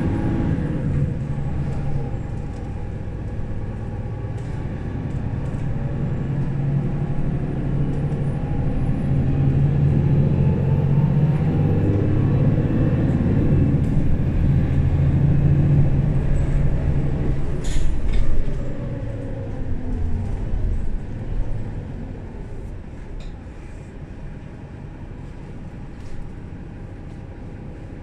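Mercedes-Benz O530 Citaro Facelift city bus diesel engine running under load. The drone grows louder through the middle, with its pitch rising and falling, then drops back to a quieter steady run in the last few seconds. A sharp click comes about eighteen seconds in.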